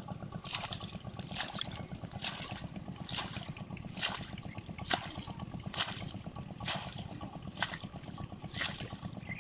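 Water splashing in an even rhythm, about one splash a second, over a steady low rumble.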